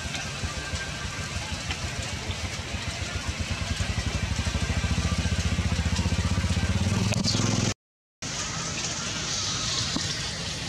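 Steady rain hiss. From about three seconds in, a low, fast-pulsing drone grows louder, then the sound cuts out to brief silence just before eight seconds and the rain hiss returns.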